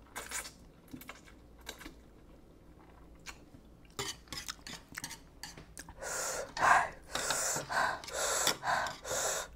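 Noodles slurped and chewed, a few light clicks of chopsticks on the metal tray, then from about six seconds in a quick run of loud open-mouthed breaths, about seven of them: panting from the burn of extra-spicy fire noodles.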